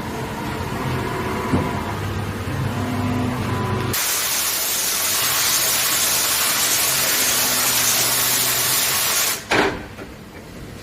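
Industrial machine running with a steady low hum and a few faint clicks. About four seconds in, a loud, even hiss like escaping air or spray starts. It lasts about five seconds and cuts off abruptly with a short knock near the end.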